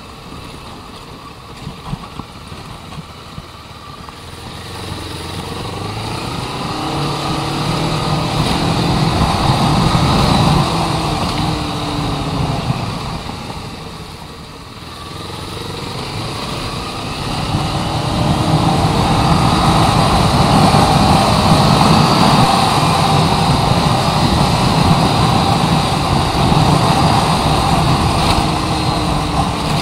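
Motorcycle engine heard while riding. It pulls up from low revs in the first few seconds, eases off around the middle, then accelerates again and holds steady at speed.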